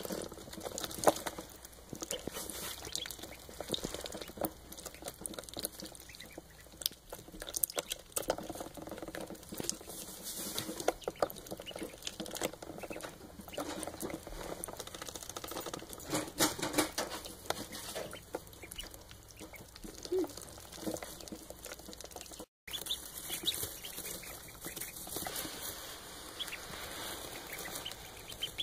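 Indian Runner ducklings peeping and moving about in straw bedding, with many small scratching, rustling and clicking sounds from their feet and bills.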